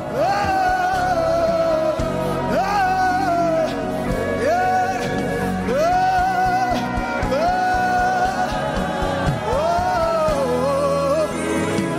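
Live gospel worship music: a lead voice sings short phrases that each swoop up into a held note, again and again, over keyboard chords and drums.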